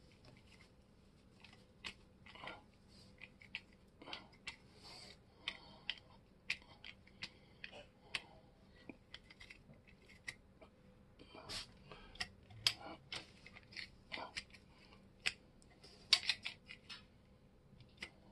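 Rusty vintage Shear Magic three-blade grass shears being worked open and shut by hand: a run of irregular metal clicks and short scrapes from the blades and pivot joints.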